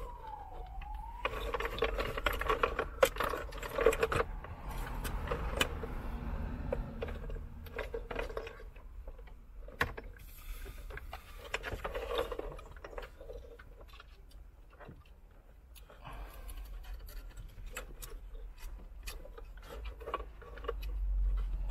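Plastic dash fascia and head-unit housing clicking, knocking and rattling in irregular handling sounds as the unit is held and pressed into the dashboard, with loose wiring rustling. A distant siren's falling wail trails off in the first second.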